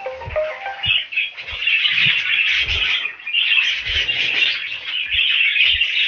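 Budgies chirping in a dense, continuous scratchy chatter, with a few soft low thumps mixed in.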